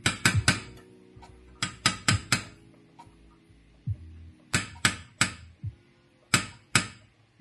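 A metal spoon clinking against a stainless steel saucepan of cheese sauce: about a dozen sharp taps in groups of two to four.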